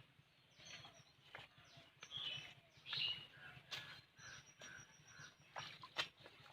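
Birds chirping in short calls, with scattered sharp clicks and knocks.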